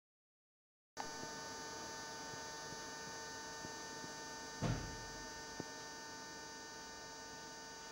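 Steady electrical hum starting about a second in, several fixed tones over faint room noise. A low thump comes a little past the middle, followed by a small click.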